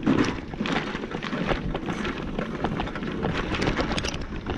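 Mobility scooter rolling over rough yard ground, its tyres crackling and knocking over dry leaves, twigs and bumps in a steady run of short clicks, with wind rumbling on the microphone.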